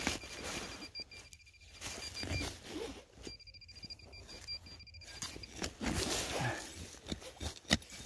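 A handheld metal-detecting pinpointer sounding a rapidly pulsing high electronic tone as it sits near a buried target, for about two and a half seconds, then again for about two seconds after a short break, over scraping of a digging knife in the soil. A few sharp clicks come near the end.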